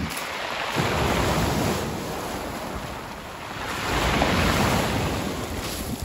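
Sea surf breaking and washing up over a pebble beach, swelling twice as waves come in, about a second in and again around four seconds in.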